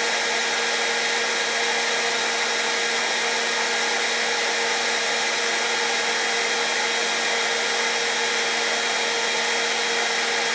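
Hair dryer running steadily: an even rush of blown air over a constant motor hum, with no change in speed.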